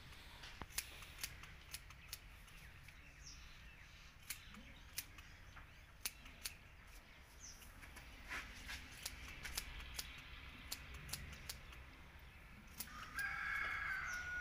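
Faint, sparse, irregular clicks and snips, with a rooster crowing once near the end in one held call.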